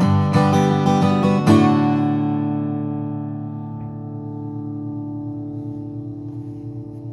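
Orangewood Echo acoustic guitar playing the closing notes of a song: a few quick picked notes, then a final strummed chord about a second and a half in that is left to ring and slowly fade.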